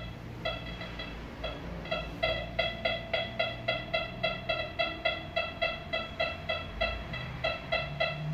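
Nexus Standard SE metal detector giving a rapid series of short beeps, about three or four a second, as a small piece of silver (about 1 gram) is passed in front of its search coil: the detector signalling a non-ferrous target.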